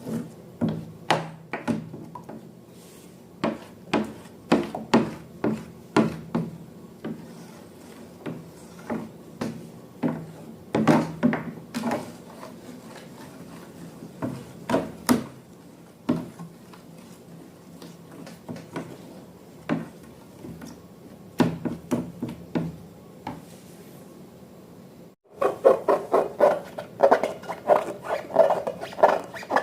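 Hands working slime: an irregular run of sharp clicks, taps and sticky pops. About 25 s in it cuts out for a moment, then comes back denser and louder.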